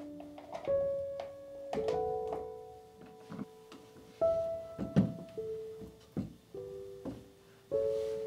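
Slow background piano music, one held note after another, over several sharp knocks and clunks of objects being handled. The loudest clunk comes about five seconds in.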